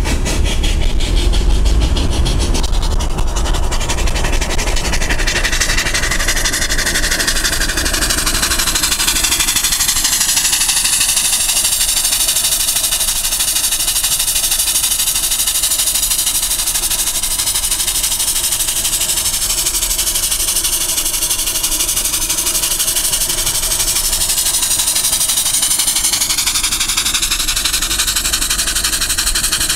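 Homemade steam motorcycle's steam engine running at speed: rapid chuffing in the first few seconds merges into a steady loud hiss of exhaust steam, over a low rumble.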